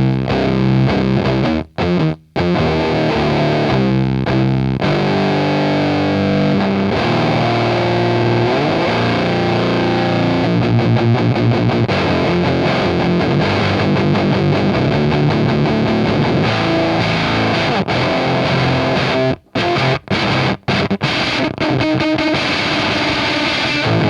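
Electric guitar with a bridge humbucker through a vintage-voiced fuzz pedal set to low gain, into a valve amp and a 4x12 cab with Vintage 30 speakers: gnarly fuzzed chords ringing out, with a pitch slide partway through and a few sudden stops near the start and again near the end.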